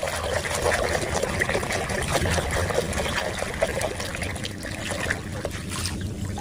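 Water steadily trickling and splattering as a muddy toy is rinsed clean.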